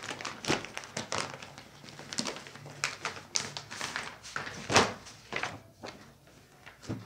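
Irregular taps, thunks and rustles from handling folded Dhanak suit fabric and its card design card, with one sharper knock about three-quarters of the way through.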